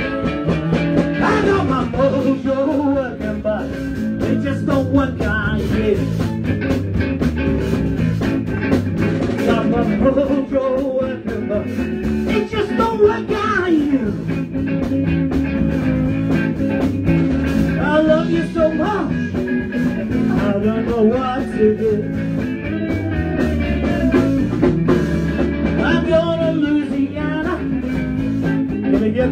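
Live blues-rock band playing, with electric guitar lines over drums keeping a steady beat.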